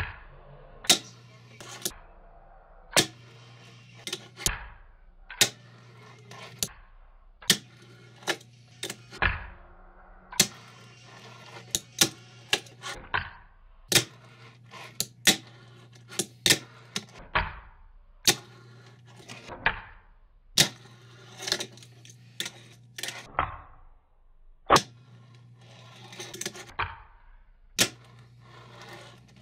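Fingerboard tricks on a wooden desk: sharp, irregular clacks as the board's tail is popped and the deck and trucks land on the wood, with the rolling of its small wheels across the desk in between.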